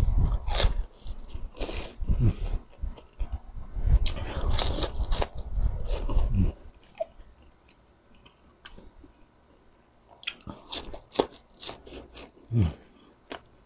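A person biting into and chewing crispy deep-fried pork intestine (chicharon bulaklak) close to the microphone: loud, crisp crunching for the first six seconds or so, then much quieter chewing with a few small clicks and mouth sounds.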